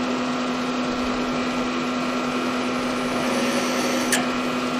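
Manual milling machine spindle running at a steady hum as a small drill bit is fed into a metal plate, drilling the pilot hole for one end of a slot. A short sharp click about four seconds in.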